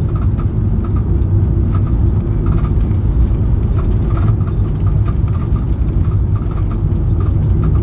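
Steady low rumble of a Ford Transit 250 van on the move: engine and road noise.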